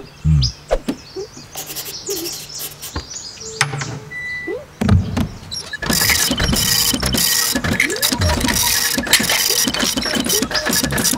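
Cartoon sound effects: a string of clicks and short sliding sounds, then, from about six seconds in, a machine set going and running with a dense whir and rows of rapid beeping.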